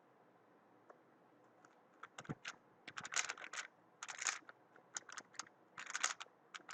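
A Weilong WRM 2019 speedcube being turned fast in a speedsolve: after about two seconds of quiet, bursts of quick plastic clicking, some dense runs of turns lasting about half a second, separated by short pauses.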